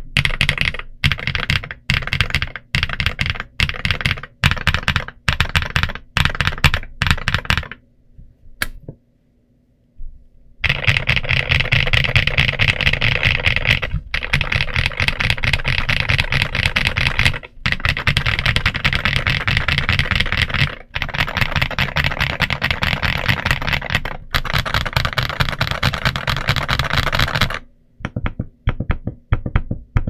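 Typing on a stock Redragon Ucal K673 Max gasket-mounted mechanical keyboard. It starts with separate keystrokes in quick clusters, goes quiet for about two seconds, then turns to fast, steady typing with a few brief breaks, and ends with a handful of lighter keystrokes.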